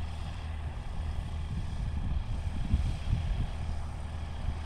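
Tecnam P2002 Sierra light aircraft's Rotax 912 flat-four engine and propeller running steadily at low power on the runway, a steady low drone.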